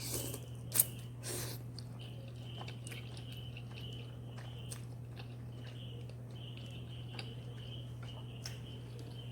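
A person chewing a mouthful of spicy instant noodles, with a few louder mouth noises in the first second and a half and soft, scattered mouth clicks after. A steady low hum runs underneath.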